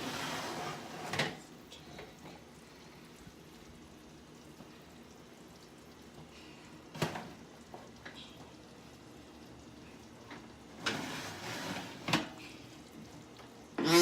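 Kitchen handling noises from cooking: a short rustling clatter at the start, a sharp knock about halfway, and another brief clatter with a knock near the end, with quiet stretches between.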